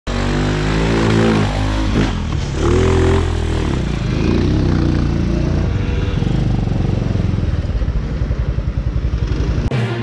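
Small engine of a modified 4x4 Power Wheels monster-truck go-kart revving up and down, then running with a pulsing beat that slows, before cutting off suddenly near the end.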